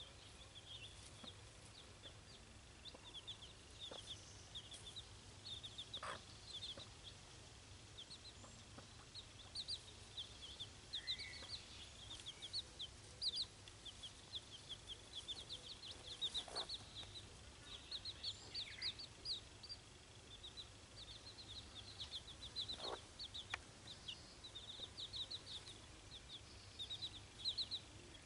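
Chicks peeping continually in quick, high little cheeps, with a few faint clicks among them.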